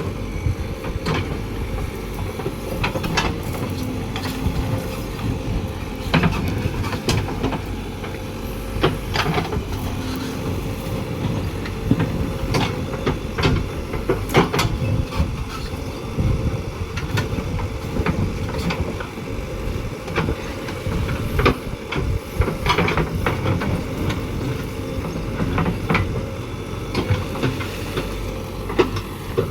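JCB 3DX backhoe loader's 76 HP diesel engine running steadily while it works, with irregular metal clanks and knocks scattered throughout.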